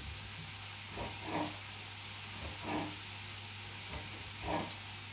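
Food frying in a pan with a steady sizzling hiss, broken by three short louder sounds about a second and a half apart.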